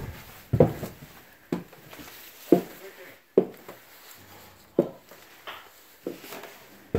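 Footsteps climbing a wooden staircase: a series of heavy thuds about once a second.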